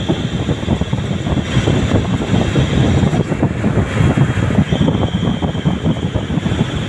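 CNC turning lathe machining a spinning part under a flood of coolant: steady running and cutting noise with coolant splashing, and a thin high whine that drops out and returns a few times.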